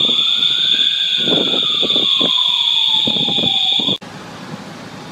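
A building fire alarm sounds a loud, steady high tone while an emergency-vehicle siren wails, rising slowly and then falling. Both cut off abruptly about four seconds in, leaving a quieter steady background noise.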